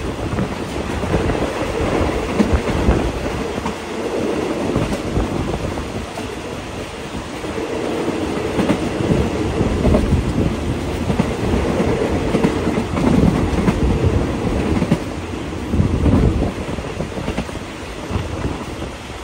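Passenger carriage of a diesel-hauled train running at speed: a steady rumble and clatter of steel wheels on the rails with irregular low thumps, heard from an open side window.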